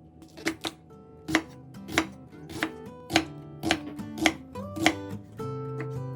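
Kitchen knife chopping on a cutting board, a sharp stroke a little more often than every half second, about nine in all. Acoustic guitar background music plays underneath and grows louder near the end.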